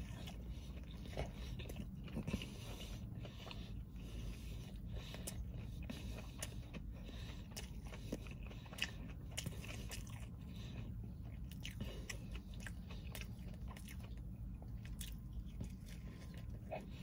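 Close-up eating sounds of a breaded chicken burger with crispy bacon: bites followed by crunchy chewing, as many short irregular crunches.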